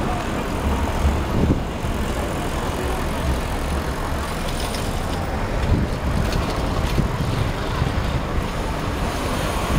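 Steady city street traffic noise with a low rumble, and a car passing close about a second in.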